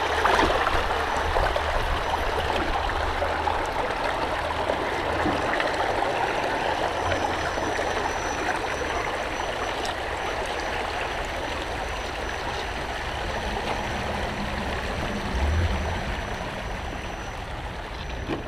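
Shallow rocky stream rushing over stones in a steady wash of water, with a faint low hum that comes and goes underneath.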